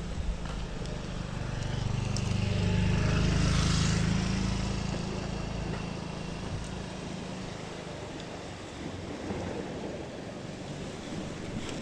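Low engine drone of a passing motor, swelling to its loudest about four seconds in and then fading away.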